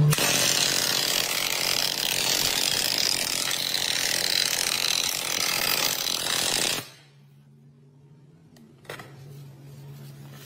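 Pneumatic long-nose stapler firing staples into a pine board in rapid succession, a fast dense rattle of shots that stops suddenly about seven seconds in. A faint low hum and a single click follow.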